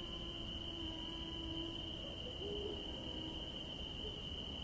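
Faint, steady high-pitched evening insect song, a continuous trill, with a faint low hum in the first couple of seconds.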